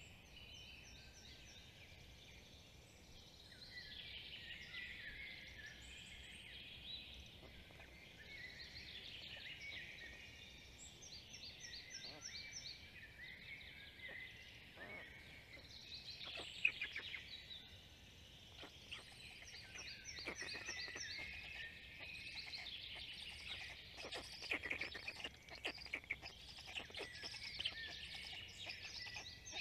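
Several songbirds singing and calling in the surrounding woodland. One bird repeats the same short trilled phrase every several seconds. In the second half there are scattered clicks and rustles.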